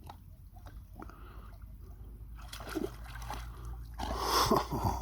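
Water splashing and sloshing as a dog swims and paddles in the lake, growing louder in the last couple of seconds.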